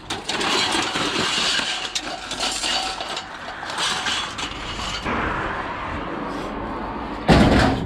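Scrap metal being handled and loaded, rattling and clinking throughout, with one loud bang near the end.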